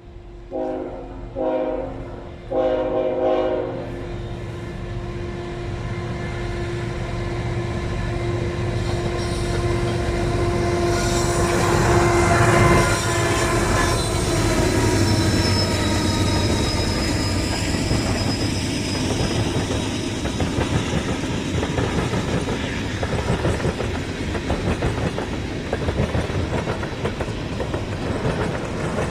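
Diesel freight train horn sounding two short blasts and a longer one, then the locomotives (an ET44AC and an AC44C6M) running past, loudest about twelve seconds in, followed by the steady rattle and clickety-clack of the freight cars rolling by.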